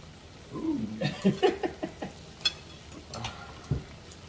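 Close-miked eating sounds: wordless, pleased humming vocalisations and wet mouth smacks and clicks while chewing. A low thump comes near the end.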